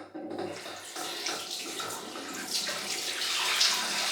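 Tap running into a bathroom sink: a steady rush of water.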